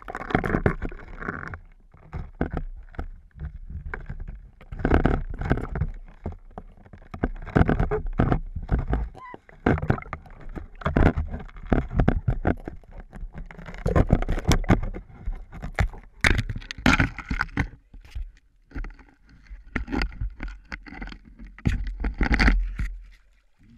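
Muffled, irregular sloshing and knocking of water against a GoPro camera's waterproof housing held under the ice, with sharp thumps scattered through.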